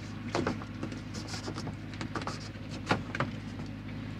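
Round plastic screw cap on a plastic water tank's port being turned shut by hand: a few light clicks and knocks, over a steady low hum.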